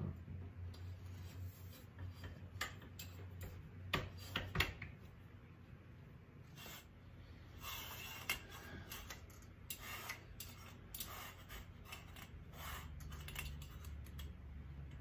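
A metal curtain rod and grommet curtains being handled: a few sharp clicks and knocks about four seconds in, then bursts of fabric rustling and metal grommets scraping along the rod.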